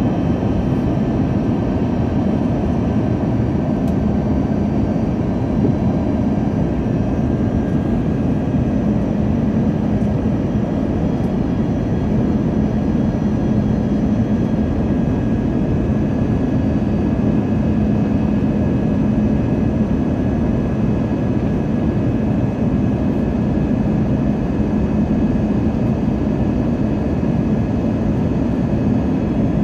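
Steady cabin noise inside an Airbus A321 airliner on approach: the even drone of its jet engines and the rush of air past the fuselage, with a low hum and faint high steady whines.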